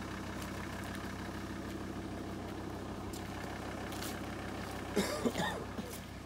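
A vehicle engine idling steadily, with a short voice-like call about five seconds in.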